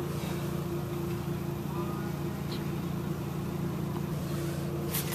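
Steady low mechanical hum: a constant drone with a clear unwavering tone above it and a light hiss.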